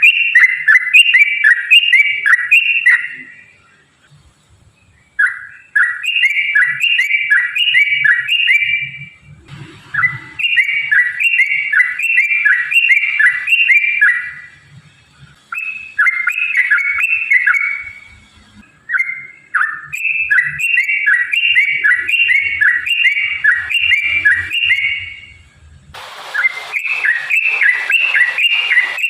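Yellow-vented bulbul (trucukan) singing long runs of quick, bubbly whistled notes, in bouts of several seconds separated by brief pauses. About 26 s in, a hiss-like background noise comes up under the song.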